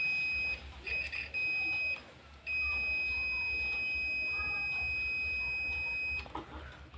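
Digital multimeter's continuity buzzer sounding a steady high-pitched beep as the probes touch points on a speaker amplifier board: a few short beeps in the first two seconds, then one long beep of nearly four seconds. The beep means the probed points are connected; the wire tests good.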